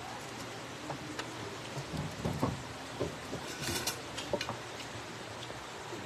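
Small clicks and taps of a meal eaten by hand: fingers picking at grilled fish and rice on a plate, with a brief clatter about three and a half seconds in, over a steady faint hiss.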